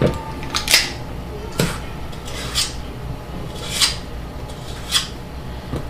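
Metal ice cream scoop portioning cookie dough: a series of short metallic clicks and scrapes, about one a second, as the scoop works and the dough is released onto the lined sheet pan.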